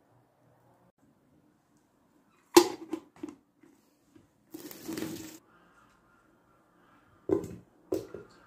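An aluminium pot lid clanks down onto a large aluminium cooking pot, with a few lighter clinks after it. About two seconds later comes a scrape lasting about a second, and then two dull knocks near the end.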